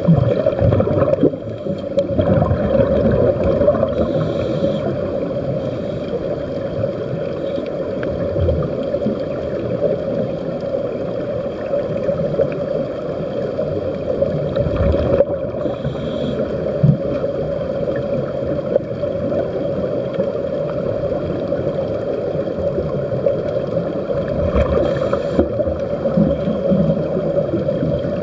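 Underwater ambience heard through a camera's waterproof housing: a steady muffled rumble with a continuous hum, and bubbling from the air escaping the sea-walking helmets.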